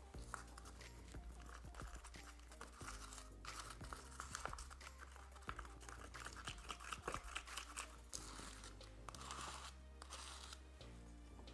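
Tile adhesive being stirred in a cup, an irregular gritty scraping and crunching, under soft background music.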